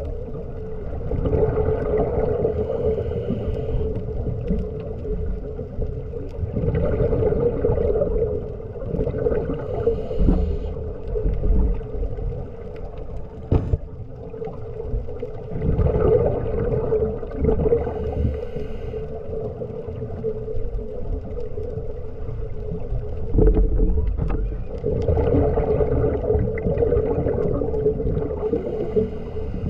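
Underwater sound picked up by a diving camera: a scuba diver breathing out through the regulator, rushing, rumbling bubbles in bursts of a few seconds about every eight seconds, over a steady low hum.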